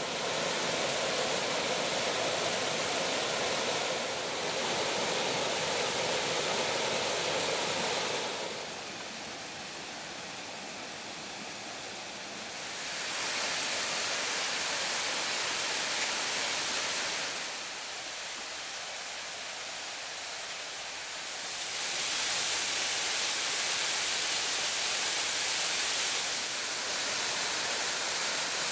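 Waterfall splashing down a rock face: a steady rush of falling water that drops quieter twice for a few seconds and comes back up.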